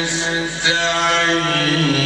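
A man's voice in melodic Quran recitation (tajwid), holding one long drawn-out note that dips in pitch near the end.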